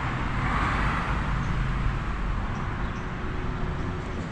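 Steady outdoor background noise: a low rumble with an even hiss, like distant road traffic, with no distinct events.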